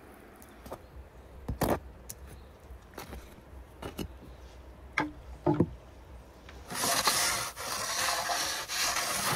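Light knocks and scrapes of a knife spreading butter on a baked loaf. About seven seconds in, a louder rough scraping begins and lasts to the end, as a wooden peel slides across the brick floor of a wood-fired oven.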